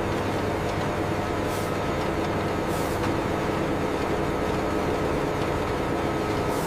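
Steady drone of factory processing machinery running, with several constant hum tones under it. Two short high hisses come about one and a half and three seconds in.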